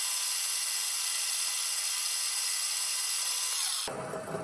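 Vertical milling machine running, a small end mill routing a slot into a desert ironwood handle block: a steady dense hiss with a fixed high whine. It stops abruptly near the end.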